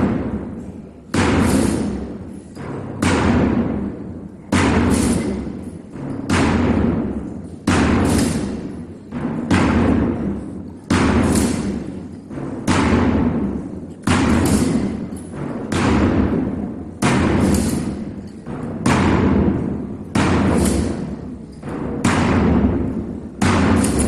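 A large drum beaten slowly and steadily, about one stroke every second and a half, each beat booming and echoing through the church in a processional rhythm.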